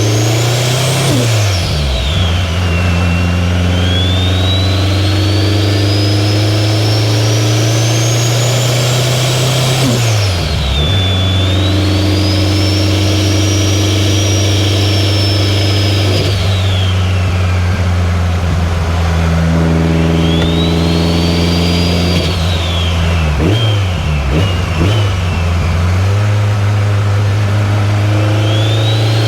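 2003 Subaru WRX's turbocharged flat-four engine pulling under load, with a high turbo whistle that rises with each pull and falls away at the gear changes. The engine note breaks off briefly three times as the driver shifts.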